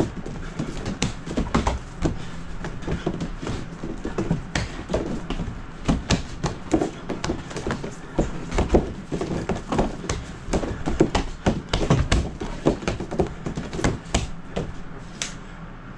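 Hands and forearms slapping and knocking against a mook jong wooden dummy's arms and taped trunk during a pummeling and trapping flow. It is a fast, irregular run of knocks and slaps, a few a second.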